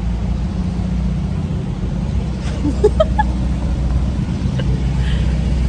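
Low, steady rumble of motor vehicle engines running in street traffic close by.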